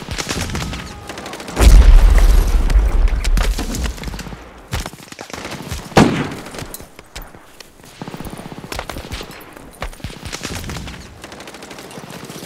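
Gunfire: rapid volleys of shots, with a heavy low rumble under them from about one and a half to four seconds in and one loud single shot about six seconds in.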